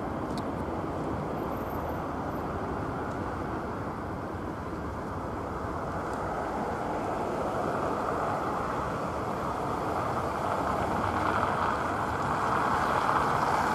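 Jet engine noise from a Boeing 737-800's CFM56-7B turbofans as the airliner climbs away after takeoff: a steady noise without a clear tone, growing somewhat louder over the last few seconds.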